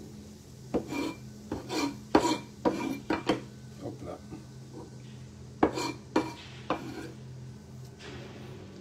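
Cleaver blade knocking and scraping against a frying pan and a wooden cutting board as chopped celery and parsley are pushed into the pan: a run of sharp clicks and scrapes for about three seconds, then a second short cluster a little past the middle, over a steady low hum.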